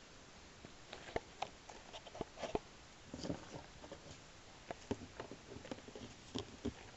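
Scattered light clicks and taps of rifle cartridges being handled in a plastic ammunition tray, with handling noise.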